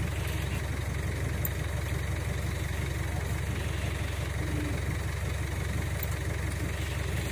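Heavy truck engine idling steadily, a low even rumble.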